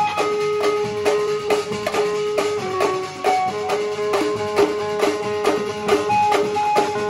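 Marfa band playing: marfa hand drums, dhols and a steel pot beaten in a steady, driving rhythm, with a melody of held notes that step up and down over the drumming.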